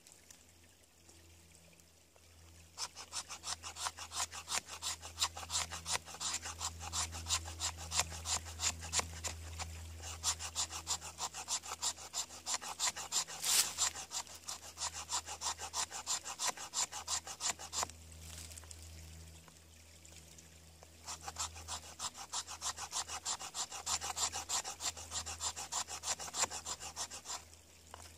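A knife scraping down a stick of resinous fatwood in rapid, even strokes, raking off fine shavings for tinder. A long run of strokes starts about three seconds in, pauses for a few seconds, then starts again and stops near the end.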